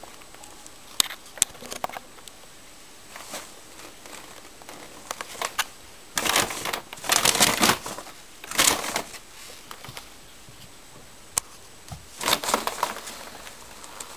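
Plastic bag full of old newspapers crinkling and rustling as a kitten moves inside it and a hand pulls at it. The rustling comes in irregular bursts, loudest in the middle and again near the end, with a couple of sharp clicks in the first two seconds.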